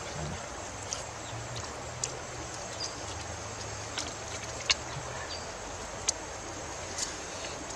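Riverside ambience: a steady hiss from a shallow stream under a faint low hum, with a handful of sharp clicks and taps as grilled fish is picked apart by hand from a woven basket tray, the loudest a little past the middle.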